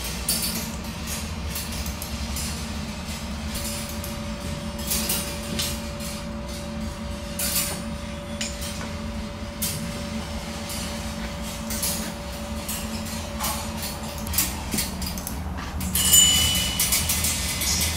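A kinetic wire marble-run sculpture running: objects rolling along its metal wire tracks and springs give a steady rumble with frequent clicks and clinks. About sixteen seconds in, a bright bell-like ring sounds, the loudest part.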